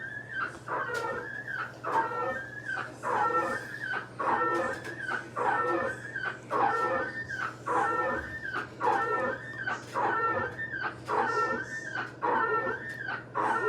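Kenmore front-load washing machine with its drum turning, giving a squealing whine that repeats about once a second, over a steady low hum. It is the sign of worn drum bearings and gaskets.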